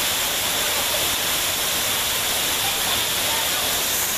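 Waterfall with two cascades pouring into a plunge pool close by: a steady, even rush of falling water.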